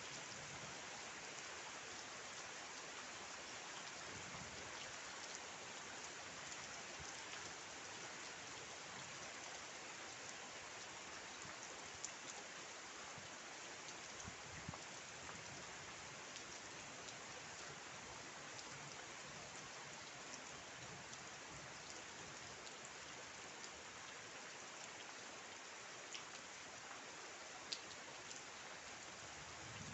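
Steady rainfall, an even hiss of rain on surfaces, with now and then a single sharper drop ticking close by.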